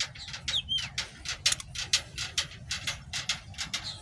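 Rapid, irregular sharp clicks, several a second, with a couple of short, high bird chirps that slide down in pitch.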